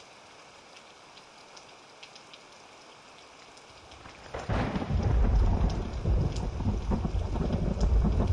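Thunderstorm: steady light rain with scattered drips, then a sudden loud clap of thunder about halfway through that breaks into a long, deep rolling rumble over the rain.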